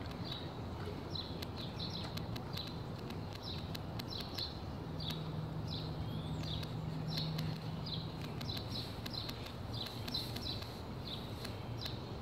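Birds chirping in short repeated notes over outdoor ambience, with light clicks and rustling as a dog pushes its nose through tall grass. A faint low hum comes in for a few seconds midway.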